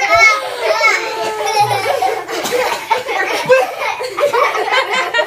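Young children's voices squealing and laughing during play: several high-pitched voices overlapping.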